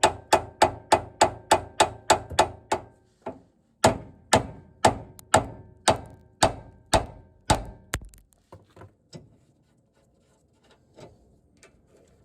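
Copper mallet striking a Ford C-Max's front hub: a fast run of ringing metal blows at about three a second, a short break about three seconds in, then a slower run of blows that ends in a few light taps around nine seconds in. The blows shock the track rod end's taper loose from the hub.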